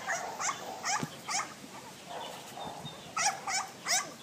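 A dog yipping: short, high-pitched yelps, about four in quick succession, a pause, then three more.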